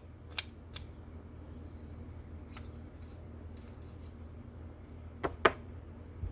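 Light, scattered clicks and taps of small metal carburetor parts and tools being handled during reassembly, with two sharper clicks about five seconds in, over a low steady hum.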